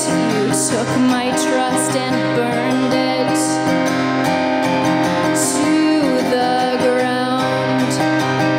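Strummed acoustic guitar with a woman's voice singing over it, holding and bending long notes: a solo singer-songwriter performing live.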